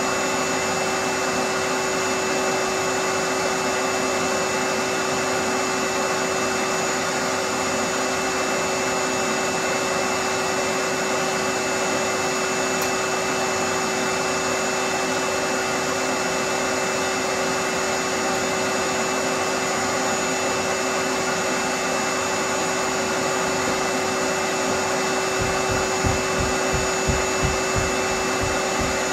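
A fan-driven electric motor running steadily, with a rushing airflow hiss and a steady hum. A quick run of low knocks comes near the end.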